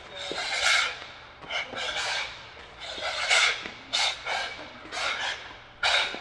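A boxer's sharp, hissing exhales with each punch while shadowboxing hard, in quick bursts about two a second.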